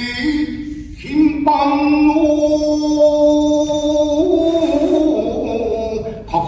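Shigin, Japanese classical poetry chanting: a voice holding long, drawn-out notes that step up and down in pitch, with a breath about a second in and a short break near the end.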